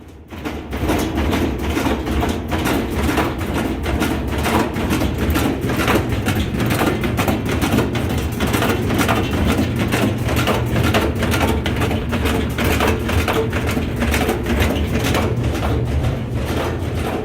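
Whirlpool washing machine spinning out of balance, its tub knocking repeatedly in a rapid, regular rhythm over the steady low drone of the spin. The knocking starts about half a second in and keeps up steadily.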